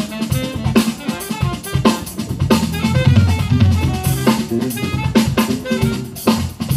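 Live jazz band playing: a drum kit keeping a steady beat under an electric bass line, with a melody line above.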